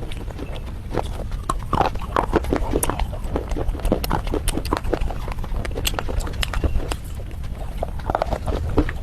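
Red slate bars coated in clay paste being bitten and chewed close to the microphone: dense, irregular crunching and crackling with sharp snaps.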